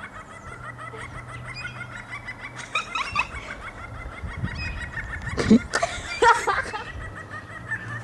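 Gull calling during copulation: a fast run of short, repeated laughing notes, with louder calls about three, five and a half and six seconds in.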